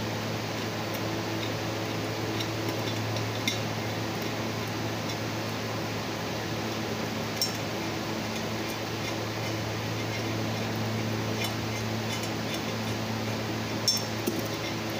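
Light metallic clinks of a screwdriver against the metal EGR valve assembly of a Ford Ranger 3.2 L as it is worked on by hand. There are a few separate clinks, the loudest near the end, over a steady fan hum.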